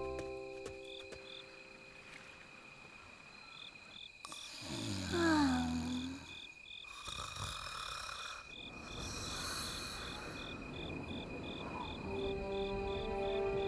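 Cartoon night ambience: crickets chirping evenly at about three chirps a second, with two rushing whooshes in the middle and a short falling-pitch sound about five seconds in. Soft music notes are held at the start and come back near the end.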